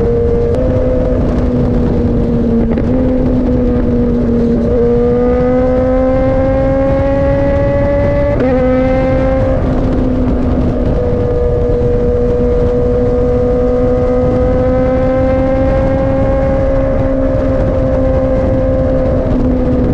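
BMW S1000RR inline-four engine running through an Austin Racing GP1R full Inconel exhaust, holding a steady, fairly high note. Its pitch creeps up and shifts in small steps a few times, about five and eight seconds in, over a constant low rush.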